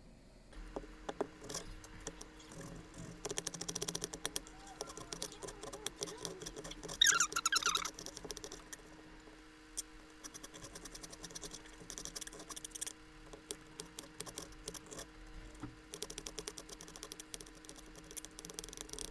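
Kitchen knife chopping red onion and cilantro on a glass cutting board: runs of quick, sharp taps of the blade against the glass. A brief wavering squeak about seven seconds in.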